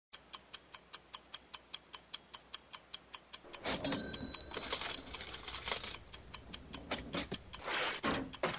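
Clock-like ticking sound effect of an intro sequence, about five sharp ticks a second. A little under four seconds in, a louder swelling whoosh with high chiming tones joins in while the ticking goes on.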